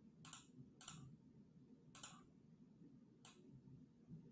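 Four faint, short computer mouse clicks, spaced irregularly a second or so apart, against near silence.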